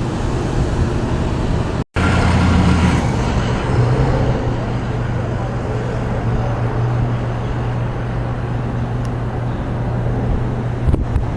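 A vehicle engine running steadily with a low hum, under wind and traffic noise; the sound cuts out for an instant about two seconds in.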